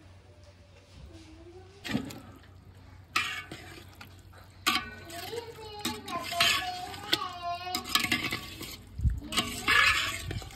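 Thick ground gravy being scraped and poured from a mixer-grinder jar into a cooking pot: a few sharp knocks against the jar, then bursts of wet slopping and scraping.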